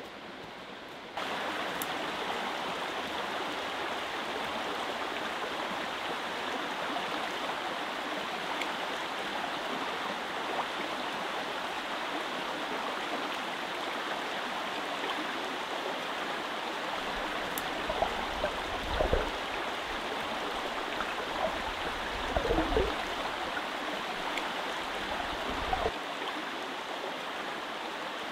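Small river flowing steadily over stones, with a few splashes and drips as water is scooped up in cupped hands in the second half.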